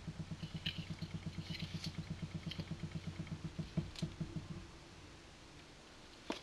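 A 12 cm PC cooling fan running with a low, pulsing hum, about ten pulses a second, that stops about four and a half seconds in. A single click follows near the end.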